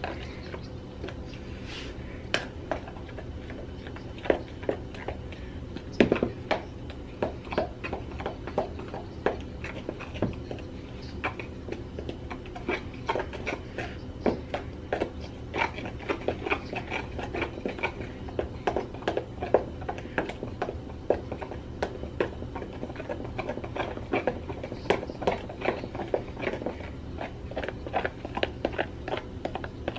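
Pancake batter being stirred in a plastic container, the utensil knocking against its sides in rapid, irregular clicks and taps that come thicker after the first few seconds.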